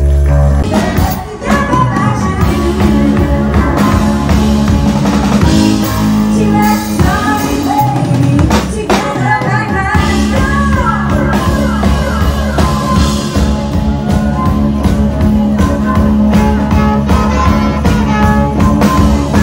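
Loud rock music with drums, a heavy bass line and bending melodic lines.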